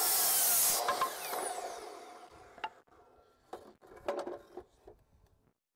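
Compound miter saw finishing a cut through a 2x4, then the blade spinning down with a falling whine over about two seconds. A few knocks and clatters follow as the board is shifted along the saw table.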